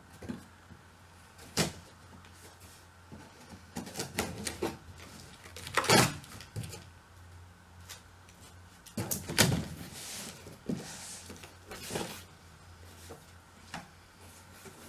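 Cardboard shipping box being opened by hand: a blade slitting the packing tape, the tape peeled away and the cardboard flaps pulled open, with scattered sharp knocks, scrapes and rustles.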